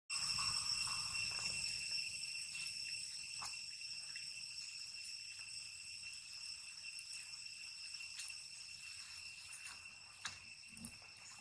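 Steady, high-pitched insect chorus, several even tones held at once, with a few faint clicks.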